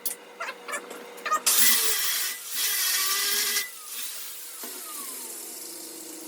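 Angle grinder running in two bursts of about a second each, then winding down with a falling whine. A few light clicks and knocks come before it.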